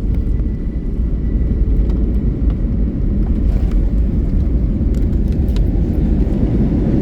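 Steady low rumble inside an Airbus A321 passenger cabin: engine and airflow noise.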